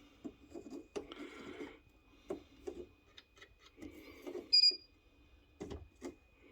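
Scattered clicks and knocks from handling at a breaker panel, then one short high-pitched beep from a non-contact voltage tester about four and a half seconds in: the tester sensing live voltage on the water heater circuit.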